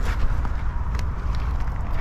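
Crushed gravel crunching under digging by hand and shovel, with a few sharp stone clicks, over a steady low rumble.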